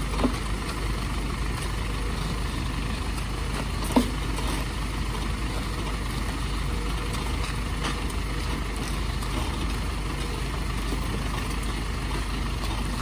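Minibus engine idling steadily, with two short sharp knocks, one at the start and a louder one about four seconds in.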